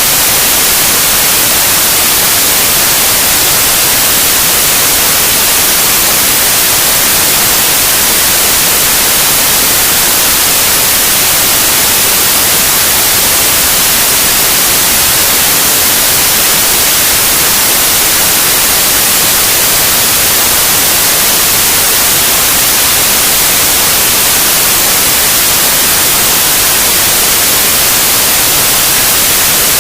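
Loud, steady white noise: an even hiss with no change in level or pitch, brightest in the highs.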